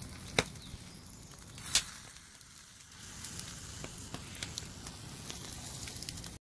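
Wood fire burning: a steady crackling hiss with scattered small ticks, and two loud pops about half a second and two seconds in.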